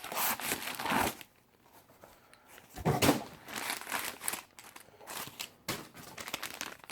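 Packaging being crinkled and torn by hand as a box of wrenches is unpacked: irregular rustling, a pause of about a second and a half, then a loud crackle about three seconds in and more rustling.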